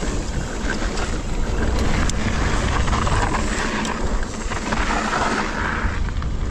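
Mountain bike riding down a trail: wind rushing over the microphone over the steady rumble of tyres on the track, with a few sharp clicks and rattles.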